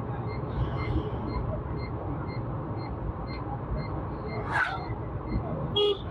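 Steady low road and engine rumble of a vehicle driving, with a faint rapid ticking about three times a second. Two brief sharp noises come near the end.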